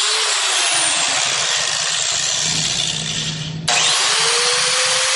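Angle grinder grinding into the aluminium edge of an iPhone 6s, a loud, steady, harsh grinding noise. It breaks off for a moment about three and a half seconds in, then starts again.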